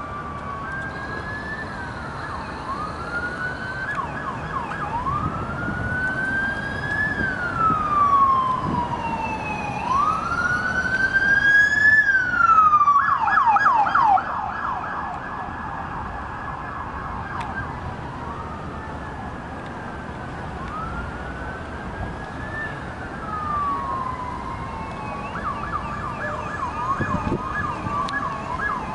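Electronic sirens of several emergency vehicles, including sheriff's patrol cars, running code past on the street. They overlap in slow rising-and-falling wail, switch to a rapid yelp about halfway through and again near the end, and are loudest as the vehicles go by in the middle.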